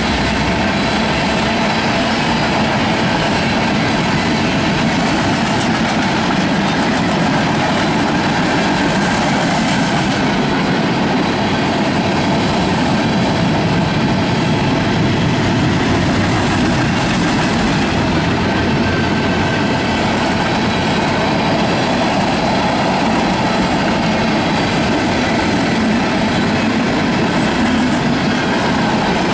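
Freight train cars, mostly tank cars, rolling past close by: the steady, loud noise of steel wheels on the rails and the rattle of the cars.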